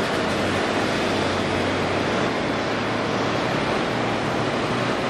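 Steady jet noise from a Boeing 777-300ER's two GE90 turbofan engines as the airliner flares and touches down on the runway.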